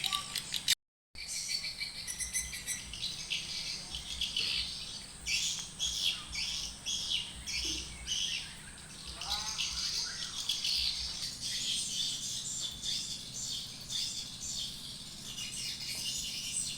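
Birds chirping and twittering, many quick calls overlapping without pause, with a thin steady high tone behind them for the first half. The sound cuts out briefly about a second in.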